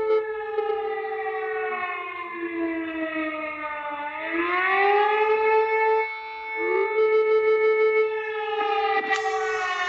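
Civil-defence-style siren wailing in an emergency alert alarm. Its pitch falls slowly, rises quickly about four seconds in and holds. It drops briefly near six seconds, then rises again and falls slowly near the end.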